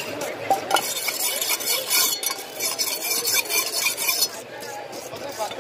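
Curved steel fish-cutting blade being sharpened on a flat whetstone: repeated scraping strokes, about two a second, from about a second in until a little after four seconds.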